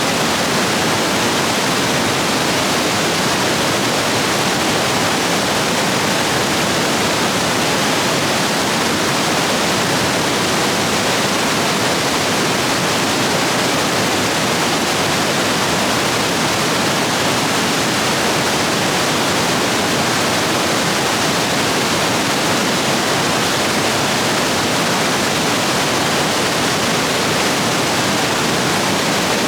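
Stream rapids rushing loudly and steadily, running high after heavy rain.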